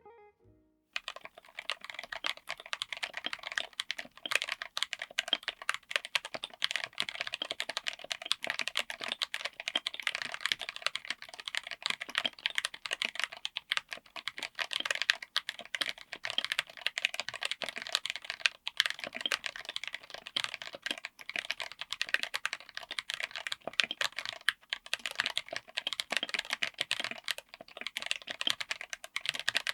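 Fast, continuous typing on a mechanical keyboard with Jerrzi Violet tactile switches, in an aluminium case with an FR4 plate. It starts about a second in.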